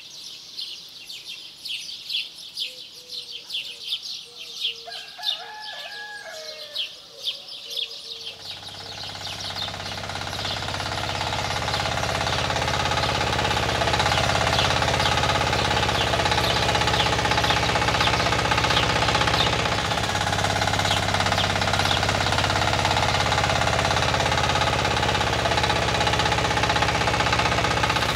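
Small birds chirping rapidly. About a third of the way in, the small engine of a motorized farm cart comes in, grows louder over several seconds, then runs steadily with an even low throb while the chirping goes on faintly.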